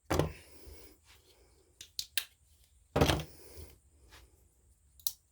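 Knives being picked up and set down on a hard tabletop: about five separate knocks and clatters, the loudest right at the start and about three seconds in, with quiet handling between.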